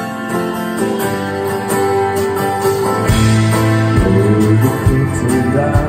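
Live rock band playing an instrumental stretch between sung lines: electric guitars over sustained chords, with a heavy low bass line coming in about three seconds in.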